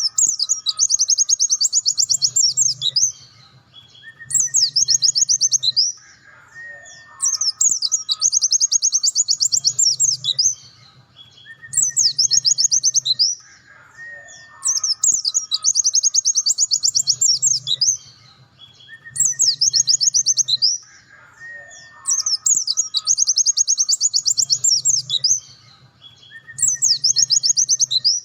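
Pleci dakun (white-eye) singing its full, rapid 'nembak' song: very fast, high trilled phrases in bursts of a second or two, with short breaks between them, over and over. A softer, lower whistle rises and holds between some of the bursts.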